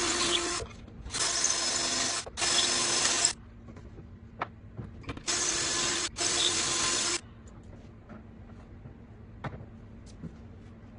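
Cordless drill spinning a stepped bit through a pocket-hole jig's guide into a board. It runs in short bursts of about a second, mostly two close together, with pauses between. A few light clicks follow once the drilling stops.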